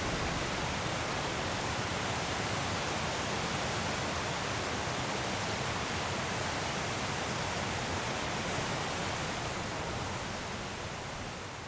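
Mahon Falls waterfall: a steady, even rush of falling water, beginning to fade out near the end.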